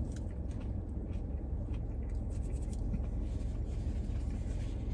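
Chewing a bite of crispy fried chicken sandwich, with faint scattered crunches, over the steady low rumble of a car cabin.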